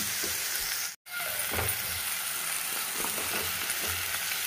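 Onion-tomato masala sizzling in oil in a frying pan while a spoon stirs and scrapes through it. The sound cuts out briefly about a second in.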